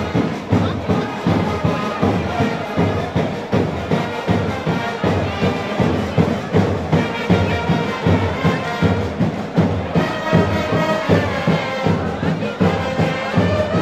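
Carnival street band playing: brass and drums in a lively march with a steady, driving beat.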